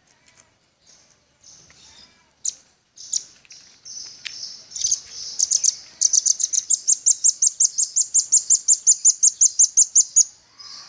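Velvet-fronted nuthatch calling: scattered high chips at first, then from about six seconds in a fast, even run of sharp high notes, about six a second, that stops just before the end.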